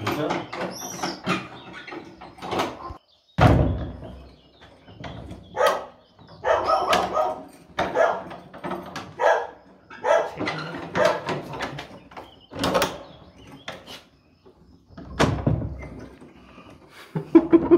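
An iron key being worked and rattled in the stiff old lock of a heavy wooden door, with repeated metallic clicks and knocks. A dog barks at times.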